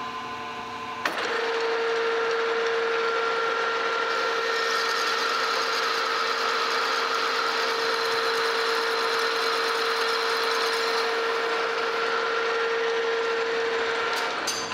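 Metal lathe turning a gear blank down in diameter on an 80-thou cut. The spindle starts with a small click about a second in, then runs steadily with a steady whine and the hiss of the tool cutting, and stops near the end.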